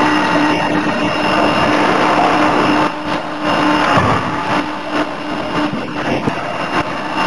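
CNC forging hammer and forge machinery running: a loud, steady mechanical noise with a held hum that stops about four seconds in.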